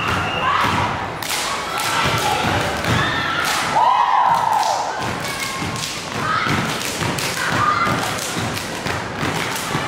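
Step team stepping: feet stomping and hands clapping and slapping, a dense string of sharp thuds and claps, with voices calling out over them.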